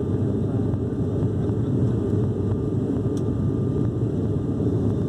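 Steady low drone inside the cabin of an ATR 72-600 from its twin Pratt & Whitney PW127M turboprop engines and propellers, mixed with airflow noise, during the climb after takeoff.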